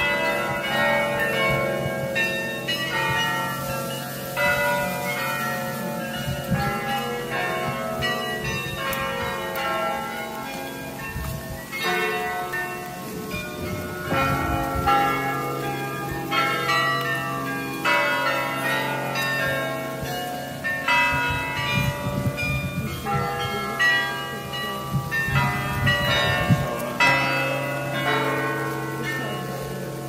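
Church tower carillon playing a tune: many tuned bells struck in quick runs at different pitches, their notes ringing on and overlapping.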